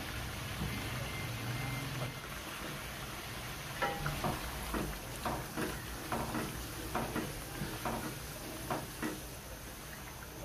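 Chicken in tomato gravy sizzling and simmering in a pan. From about four seconds in, a wooden spatula stirs it, scraping and knocking against the pan two or three times a second.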